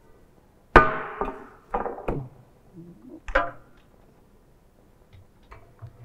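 Stainless steel test sieves and their lid clanking as they are lifted off a stopped sieve shaker. There is a loud clank with a ringing tail about a second in, further knocks at about two and three seconds, and light clicks near the end.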